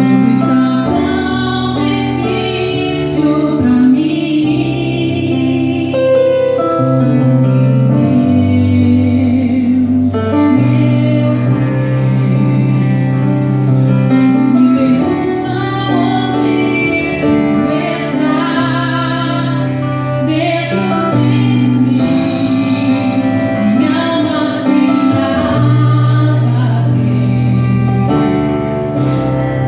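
Slow Brazilian gospel song: a female voice sings over instrumental accompaniment with held bass notes that change every second or two.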